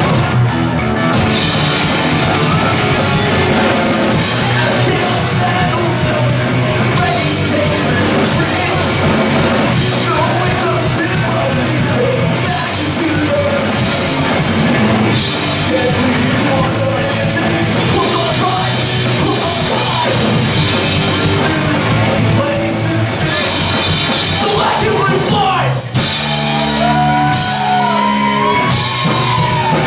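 Hardcore punk band playing live: distorted electric guitar, bass guitar and drum kit, with a shouted lead vocal. About 26 seconds in the music drops out for a moment and comes back in a new section of the song.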